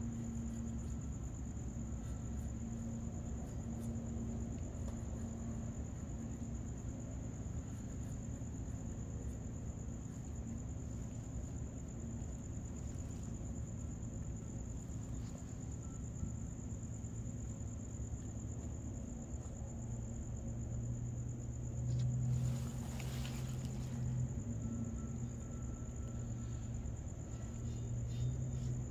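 A cricket trilling steadily at a high pitch over a low steady hum, with a brief rustle about 22 seconds in.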